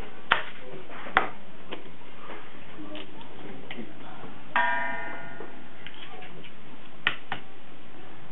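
Eggs being tapped against the rims of stainless steel mixing bowls to crack them: a few sharp taps, and one about halfway through that sets a bowl ringing briefly.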